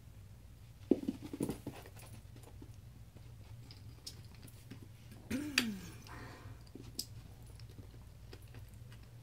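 A small dog playing with a plastic bottle cap on carpet: scattered light clicks and taps as the cap is nosed and knocked about, the sharpest about a second in. About five seconds in comes a short vocal sound that falls in pitch.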